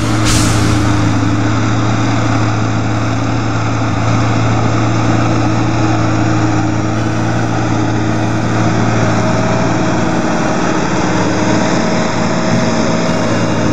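Same Supertitan tractor's diesel engine running steadily under load, pulling a three-furrow plough through the field.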